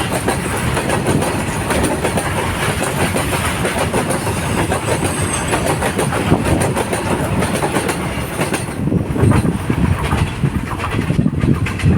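A train passing close by on the track, its steel wheels clattering over the rails in rapid knocks. The high hiss falls away about nine seconds in, leaving lower, more spaced knocks as the train goes by.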